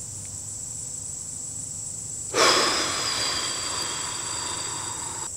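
Insects chirring steadily at a high pitch. About two and a half seconds in, a sudden loud rush of noise starts and fades slowly over about three seconds, then cuts off.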